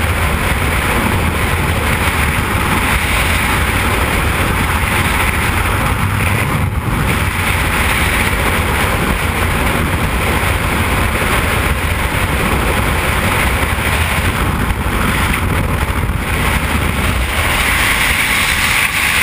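Freefall wind rushing over a helmet-mounted camera's microphone: a loud, steady roar.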